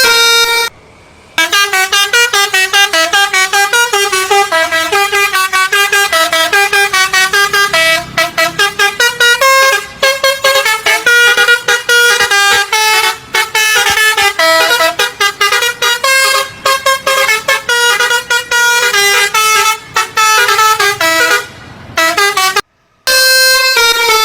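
Indonesian 'telolet basuri' bus horn, a multi-tone musical air horn, playing a fast tune of short staccato notes. The notes stop briefly about a second in and again near the end.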